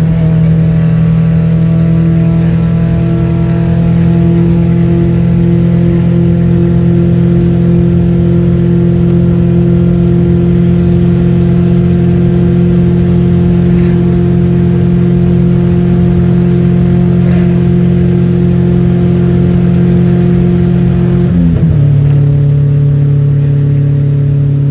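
Turbocharged 1.5-litre four-cylinder engine of a Fiat Premio droning at steady revs while cruising, heard from inside the cabin. Near the end the engine note drops to a lower steady pitch.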